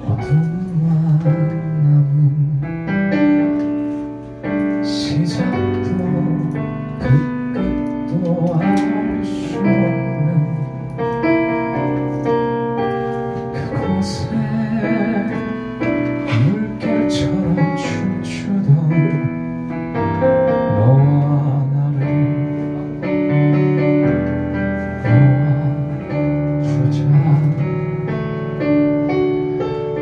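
Live band music: a Yamaha stage piano playing chords with an electric guitar, and a male voice singing over them at times.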